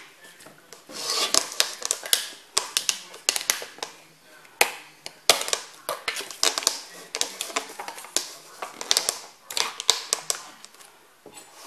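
Repeated clicks, taps and rustling of kitchen containers and utensils being handled on a worktop, in quick irregular runs with brief pauses.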